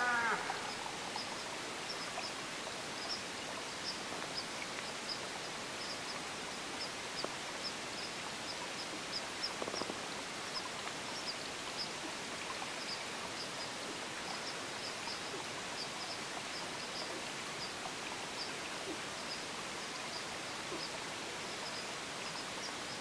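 Quiet outdoor ambience: a steady background hiss with faint, high, short chirps repeating irregularly, roughly twice a second.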